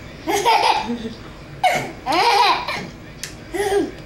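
An 8-month-old baby laughing in three bursts, each rising and falling in pitch.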